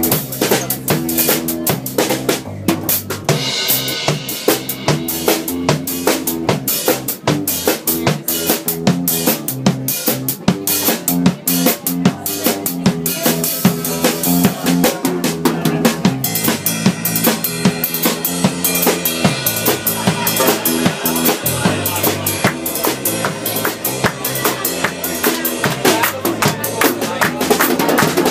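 A live band playing, with a drum kit, bass drum, snare and cymbals, keeping a busy, steady beat under stringed instruments. The texture changes about halfway through.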